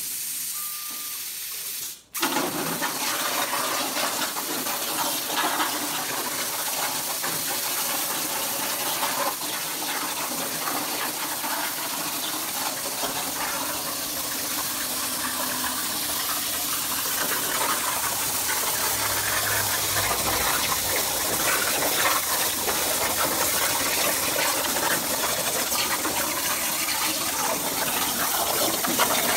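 CNC plasma torch with a 45-amp tip cutting 16-gauge hot-rolled steel at 300 inches a minute: a steady hiss of the arc and cutting air. It drops out for an instant about two seconds in, then runs on.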